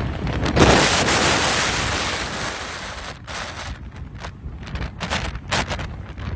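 Strong storm wind rushing over the microphone, loudest in a surge about half a second to two seconds in, then dropping to short, choppy gusts.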